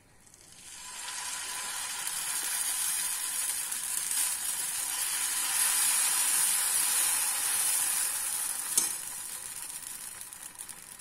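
Thick uttapam batter sizzling as it is ladled onto a hot dosa tawa and spread in a circle, the sizzle showing the griddle is properly hot. The hiss builds over the first second or two and eases off near the end, with one sharp click a little before that.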